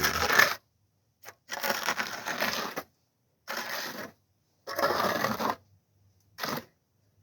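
A trowel scraping over wet, soggy concrete, smoothing it level in about five strokes of half a second to a second each, with short pauses between them.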